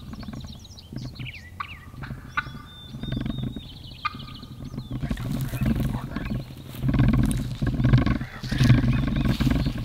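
Wind rumbling on the microphone of a camera carried on foot, with footsteps through dry grass and dead leaves getting louder from about halfway through. Songbirds chirp in the first half.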